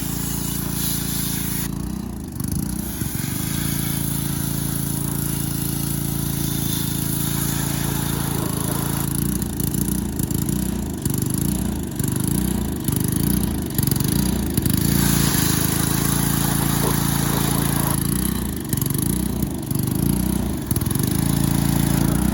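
Pressure washer's small engine running steadily with an even high hiss of water spray. Around halfway its note starts to dip and recover in a regular rhythm, a little under once a second.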